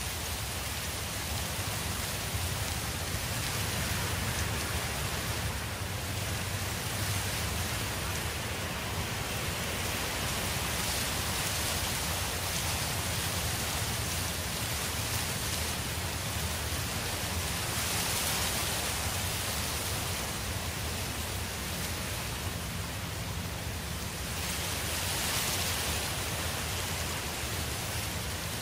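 Steady hiss with a low rumble beneath it, swelling slightly now and then, with no separate events.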